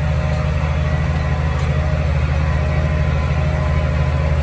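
Farm tractor engine running steadily at a constant speed while the tractor drives through floodwater.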